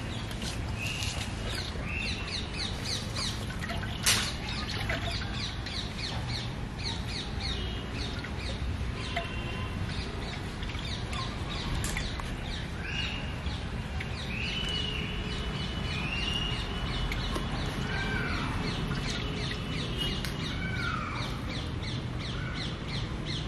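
Birds calling: rapid short chirps repeat throughout, with a number of longer calls, some holding a pitch and some falling, over a steady low background noise. A single sharp knock comes about four seconds in.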